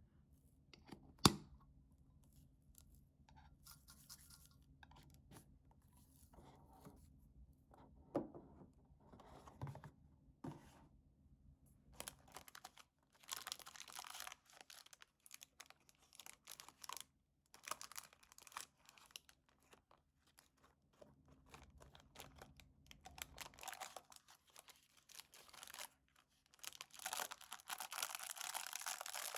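Hands handling paper and packaging at close range: scattered scratching and rustling with a sharp click about a second in, then denser stretches of rustling and tearing of paper.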